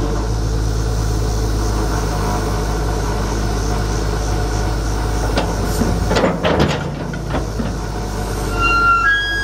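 Terex TXC225-1 excavator's Daewoo six-cylinder turbo diesel engine running steadily while the hydraulics work the boom and bucket. A brief burst of metallic clanking and squeaking from the arm and bucket linkage comes about six to seven and a half seconds in.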